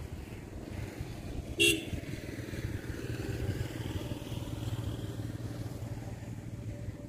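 A motor vehicle engine running steadily, with a short horn toot about one and a half seconds in.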